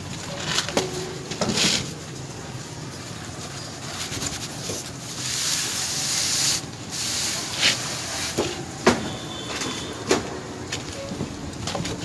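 Small steel trowel scraping and smoothing wet sand-and-cement mortar along a moulded cornice, with a longer hissing scrape about five seconds in and scattered sharp taps and knocks.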